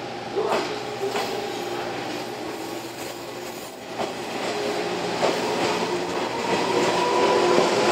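A JR 415 series electric train running slowly into the platform. Its wheels knock over rail joints about four times, under a steady whine from the running gear that grows louder near the end.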